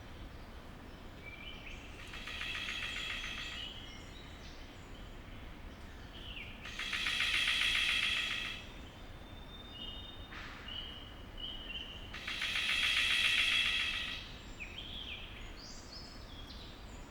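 Male golden bowerbird giving its pulsing, rattling advertising call three times, each burst lasting about two seconds, with short thin whistled notes between the calls.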